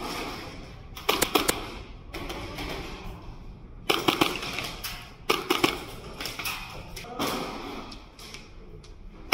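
Airsoft pistol firing in short, quick strings of sharp shots, several bursts a second or two apart.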